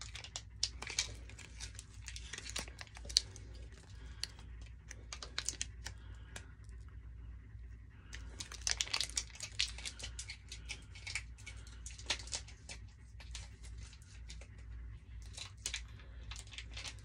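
Candy wrapper crinkling and tearing as it is handled and opened, in irregular bursts of sharp crackles.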